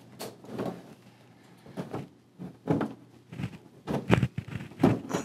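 Short plastic clicks and knocks, about six spread irregularly, from a flat-screen TV's plastic back cover being pried and pressed loose, its snap-in retaining clips letting go.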